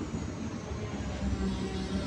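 Caterpillar 320D excavator's diesel engine running steadily under hydraulic load, a low hum with a few held tones, while the main pump's flow is being adjusted to cure low power and engine overload.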